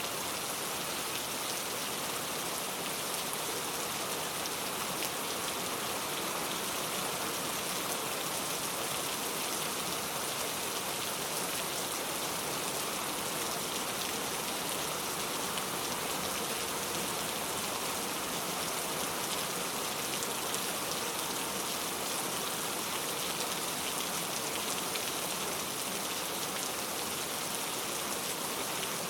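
Heavy rain falling steadily on window glass, an even hiss of drops with no thunder.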